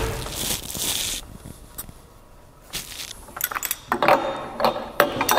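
Metal tri-clamp clinking and rattling as it is handled and fitted around the joint between the still's column and boiler. It opens with a short scraping noise in the first second, and a quick run of clinks comes in the last two seconds.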